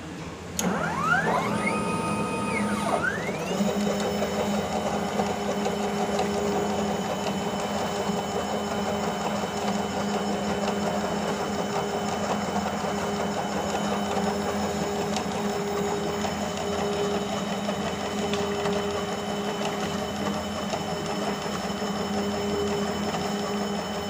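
Automatic wire harness tape-wrapping machine running. Its motor rises in pitch in a couple of steps over the first few seconds, then settles into a steady whirring hum with a steady high whine as the tape wheel spins around the wires.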